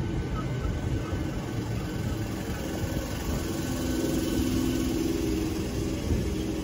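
Southeastern Class 465 Networker electric train running along the platform: a steady rumble of wheels on rail with a low traction-motor hum that swells a little past the middle.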